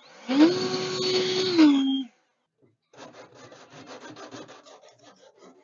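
A handheld power tool's motor runs for about two seconds, its pitch rising as it spins up, holding steady, then dropping as it is released. After a short pause comes a quieter, fast, even rasping scrape on the van's sheet-metal roof.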